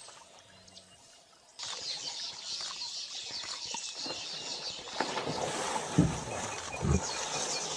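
Water splashing and churning as a large horned animal thrashes in a river. It starts suddenly about a second and a half in, grows heavier, and two heavy thuds come near the end.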